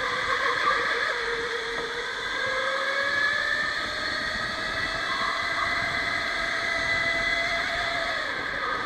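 Electric go-kart motor whining under way, its pitch slowly climbing with speed and then falling away near the end as the kart slows, over a steady rush of noise.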